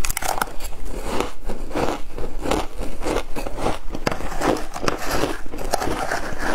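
Shaved ice crunched and chewed in the mouth, a crunch about every half second, with a metal spoon scraping and digging through more of the ice in a glass tray.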